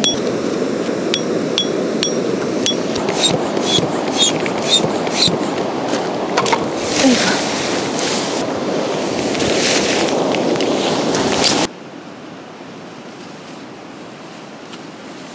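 Shallow river rushing steadily over stones, with about a dozen sharp, ringing metal strikes in the first five seconds: tent pegs being hammered in. Tent fabric rustles after that, and about twelve seconds in the sound drops suddenly to a quieter steady hiss.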